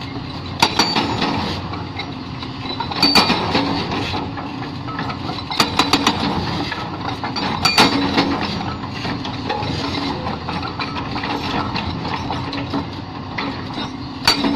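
Hyundai excavator running with its hydraulic rock breaker working, a steady engine drone under a rapid rattle, broken by several sharp metallic clinks and knocks as steel meets rock.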